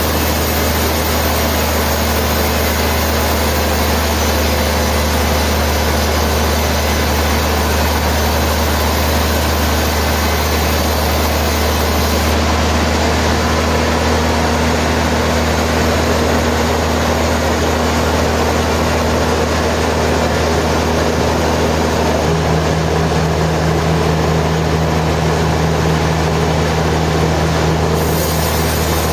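Sawmill machinery running with a steady, loud low drone and no cutting strokes. About three quarters of the way through, the machine's hum drops to a lower pitch.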